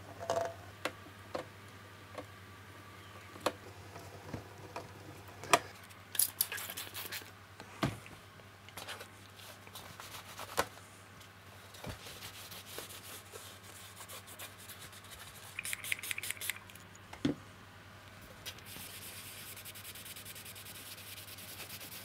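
A cloth wiping and rubbing an amplifier's removed front faceplate, with scattered light clicks and knocks from handling the parts. The rubbing settles into a steady soft hiss in the last few seconds.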